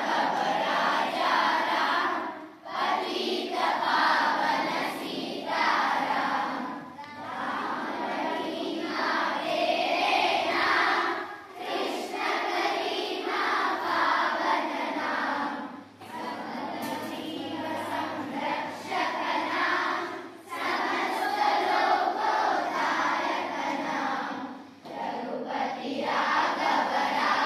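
A large group of children singing together in chorus, in phrases of about four to five seconds with a short break after each.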